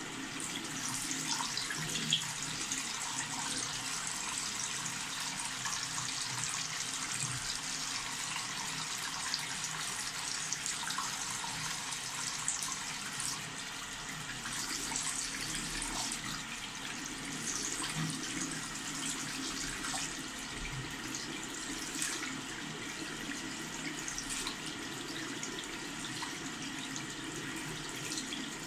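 Tap water running steadily into a sink basin and down the metal drain, a continuous splashing and gurgling.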